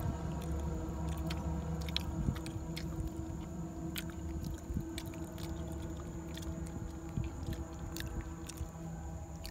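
Baby macaque chewing boiled banana: scattered short, wet smacking clicks over a steady low hum.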